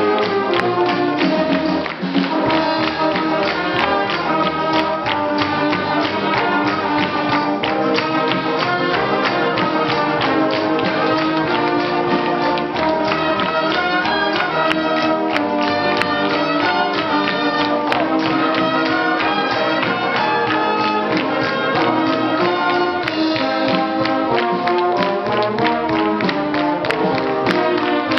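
A brass band with tuba, trombones and trumpets playing a lively pop tune over a steady drum beat.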